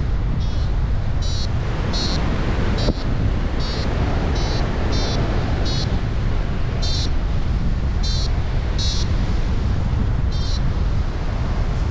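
Steady wind rushing over the microphone in paraglider flight. Over it, short high beeps come about every half second to a second and a half: a flight variometer's climb tone, the sign of the glider rising in lift.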